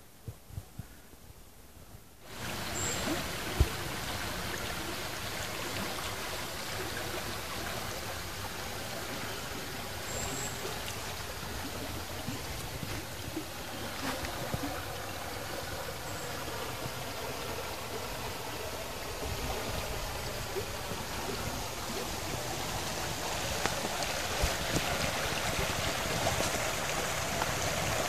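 Steady rush of flowing spring water that starts abruptly about two seconds in, with a sharp knock shortly after.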